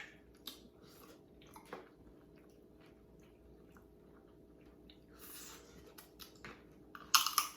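Close-miked chewing and wet mouth sounds of people eating a seafood boil, with scattered small clicks and a louder burst of noise near the end.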